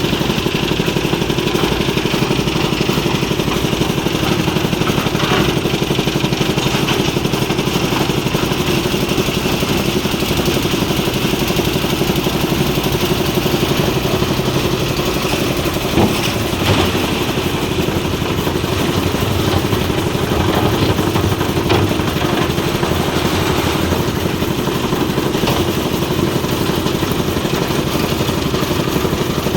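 Engine of concrete-pouring machinery running steadily, with two short knocks about sixteen seconds in.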